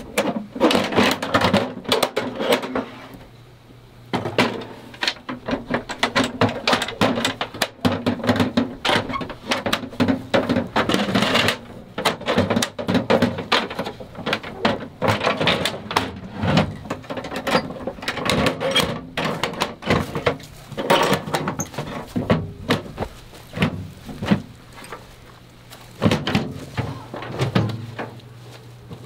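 Camping gear and bedding being handled: continual irregular rustling, knocks and thumps, over a low steady hum.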